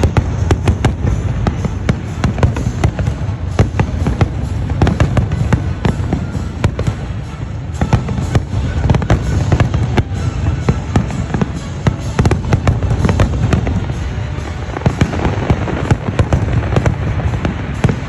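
Fireworks display: a dense run of bangs and crackles, several a second, over a continuous low rumble.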